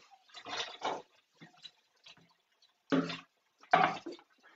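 Short splashes and clatter from a plastic bowl being handled in a steel kitchen sink: two quick bursts in the first second, a pause, then two more around three and four seconds in.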